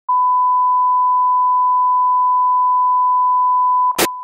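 Bars-and-tone line-up test tone: a steady, single-pitch 1 kHz beep. Near the end it is cut by a very short burst of static, after which the tone carries on more quietly.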